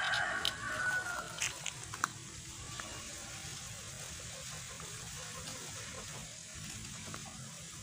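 The last held note of a white ayam ketawa rooster's crow, fading out in the first second or so. A few light clicks follow, then only a faint steady hiss.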